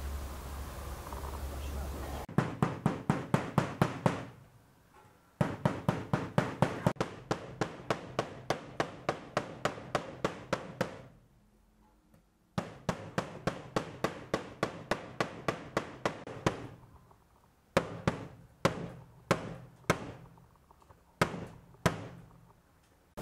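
Metal meat mallet pounding slices of raw meat flat on a wooden cutting board, tenderising and thinning them: quick runs of blows about five a second with short pauses between, slowing to single blows near the end. A low steady hum comes before the first blow.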